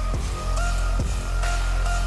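Background music with a deep bass and sustained higher notes, struck a few times.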